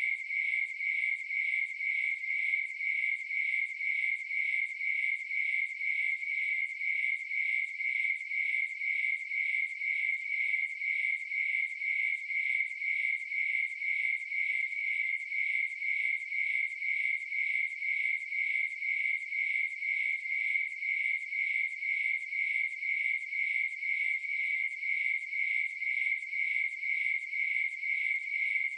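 Crickets chirping: one high note repeated in a fast, even rhythm without a break.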